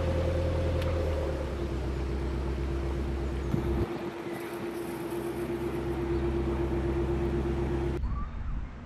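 Narrowboat engine running steadily, its low note dropping away briefly about four seconds in and then returning; the sound cuts off suddenly near the end.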